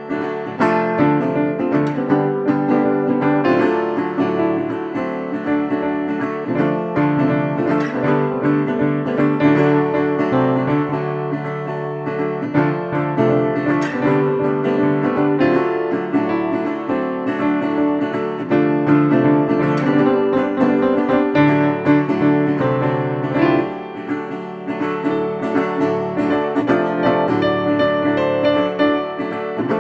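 Instrumental background music led by plucked guitar, playing without pause.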